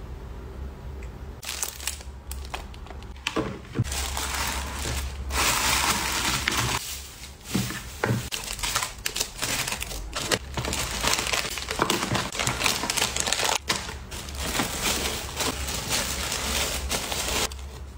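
Shredded paper filler and tissue paper being crinkled and rustled by hands while packing a cardboard mailer box. A dense, crackly paper rustle with many small clicks starts about a second and a half in and stops shortly before the end.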